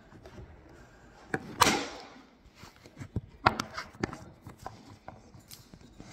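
Handling noise of the recording device being picked up and moved: scattered knocks and clicks, with a louder rubbing scrape about a second and a half in.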